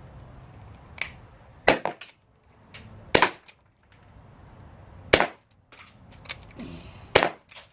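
A gas-powered metal BB pistol, a Glock replica, fired in a series of sharp cracks, the four loudest about one and a half to two seconds apart. Fainter clicks fall between the shots.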